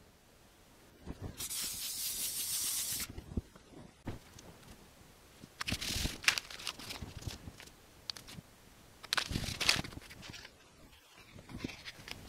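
Aerosol spray adhesive hissing from the can in one spray of about a second and a half. It is followed twice by the rustle and tap of cardboard pieces being handled and pressed down on newspaper.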